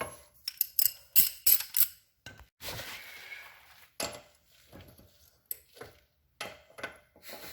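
A string of sharp metallic clinks and taps, some ringing briefly: hand tools working the ATV's rear axle nut to bring its slot in line with the cotter-pin hole.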